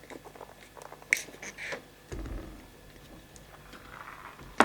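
Close-up chewing and mouth clicks of someone eating fufu and vegetable soup, with a low thud about two seconds in and a sharp clack at the very end.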